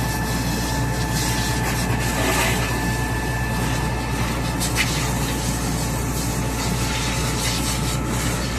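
Concrete pump truck running: a steady, heavy low drone with a faint steady whine above it, and a short clack about five seconds in.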